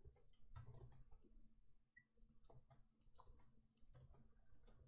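Faint computer keyboard typing: quick, irregular key clicks as code is entered.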